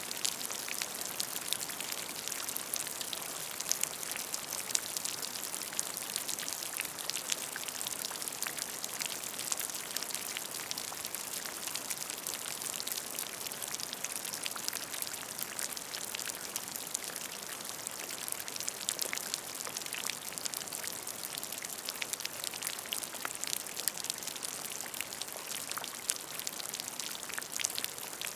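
Steady rain falling, a dense hiss of drops with many small individual drop hits. Gentle rain without thunder.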